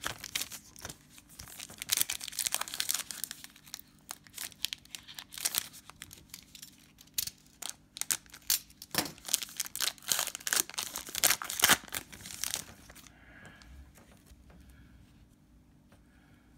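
A trading card pack's wrapper being torn open and crinkled by hand, an irregular crackling run of crinkles and tears that is loudest near the end and stops about three-quarters of the way through.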